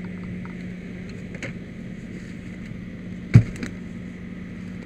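A steady low engine hum, with one sharp, loud clunk a little past three seconds in and a lighter knock just after it.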